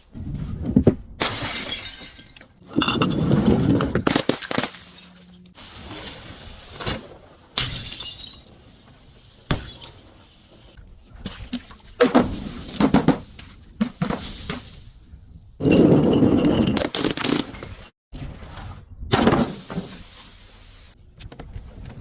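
Glass bottles and other crunchy objects being crushed: a string of separate breaking and crunching events, some short cracks and some crackling crunches lasting about a second, with glass shattering.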